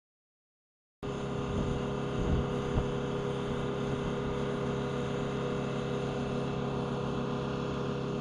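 F-15 Eagle's twin jet engines running at taxi power with a steady whine as the fighter rolls along the runway. The sound cuts in suddenly about a second in, with a couple of low thumps soon after.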